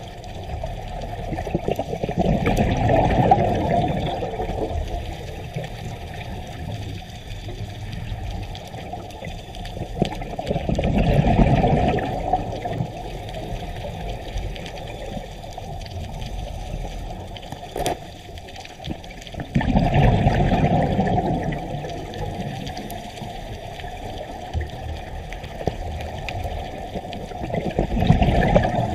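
Underwater recording from a scuba diver: exhaled bubbles from the regulator come in four surges about every eight or nine seconds, over a steady low rush of water.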